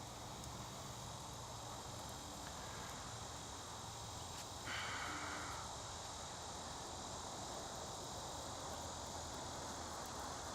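Insects trilling steadily in a continuous high drone. About halfway through comes a single breathy rush lasting about a second, a breath blown into a tinder bundle holding a hand-drill coal to bring it to flame.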